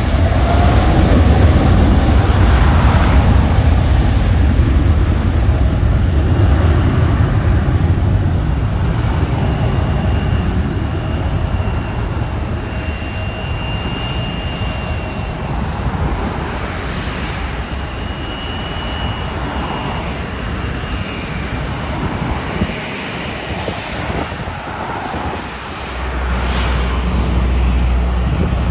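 Jet airliner passing close by: a loud engine rumble that slowly fades, with a faint thin high whine in the middle. A low rumble swells again near the end.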